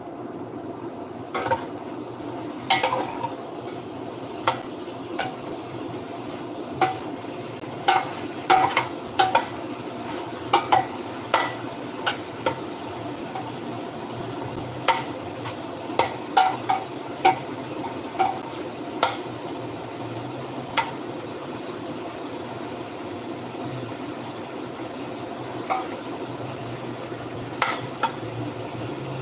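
A metal utensil stirring food in a stainless steel pot, clinking sharply against the pot at irregular moments. The clinks are thickest in the first two-thirds and fewer near the end. Under it runs a steady sizzle of food frying in the pot.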